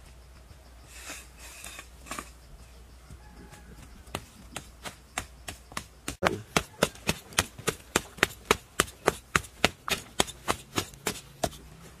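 A hand tool striking over and over in quick, even chopping or hammering blows, about four a second. The blows are light at first, get much louder about six seconds in, and stop shortly before the end.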